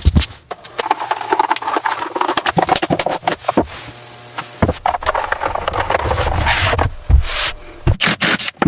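Irregular scraping with a run of knocks and clicks, a louder knock about seven seconds in.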